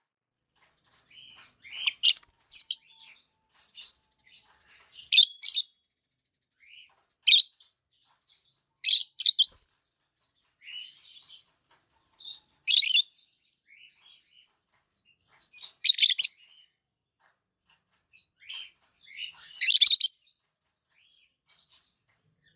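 Young parrot calling: sharp, high-pitched chirps and squeaks every few seconds, with softer chirps in between.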